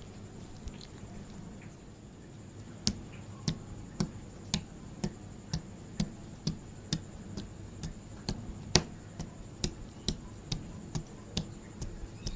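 Homemade detergent-activated slime being squeezed and pressed, giving sharp clicks and pops of trapped air, about two a second from about three seconds in.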